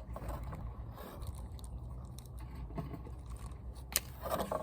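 Contents of a toy gel blaster box being handled: faint rustling and scraping of packaging, with a sharp click about four seconds in, over a low steady hum.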